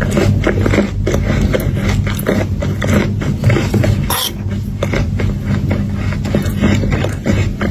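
Close-miked crunching and chewing of chocolate pieces, a dense run of irregular crackly clicks, over a steady low hum.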